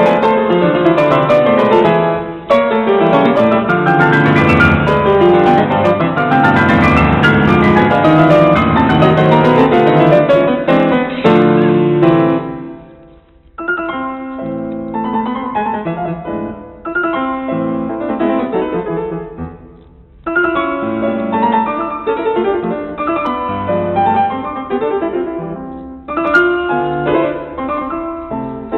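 Background piano music: fast rising and falling runs for about twelve seconds, then a quieter, sparser passage broken by brief pauses.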